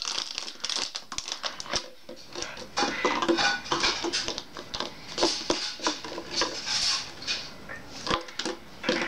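Pembroke Welsh Corgi chewing and crushing an empty plastic water bottle in his jaws: irregular crackling and crunching of the thin plastic, busier and louder from about two seconds in.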